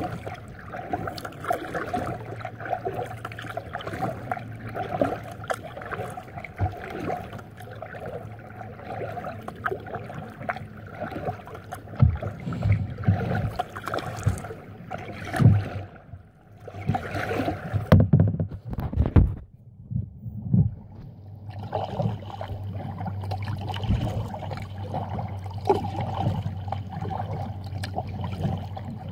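Kayak paddling: a double-bladed paddle dipping into the water on alternate sides, with splashing and dripping from the blades. Several louder low bumps come about halfway through.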